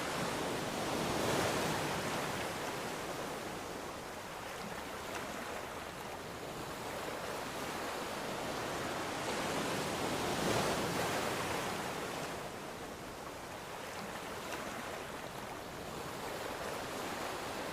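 Ocean waves washing onto the shore, a steady surf hiss that swells as a wave breaks about a second in and again about ten seconds in, then ebbs.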